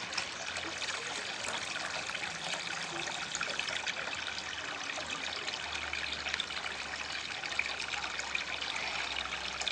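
Steady trickle of water falling from a pipe into a small koi pond and splashing on the surface.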